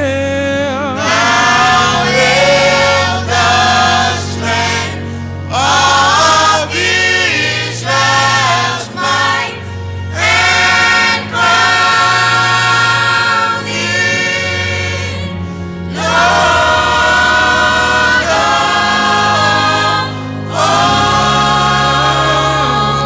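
A church congregation singing a hymn together in phrases, over accompaniment whose low bass notes are held and change every second or two.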